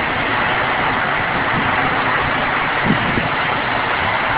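Steady rushing noise of a storm's wind and rain, with a faint low bump about three seconds in.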